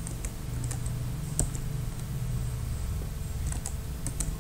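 A few scattered sharp clicks from computer keys, one about a second and a half in and a small cluster near the end, over a steady low hum.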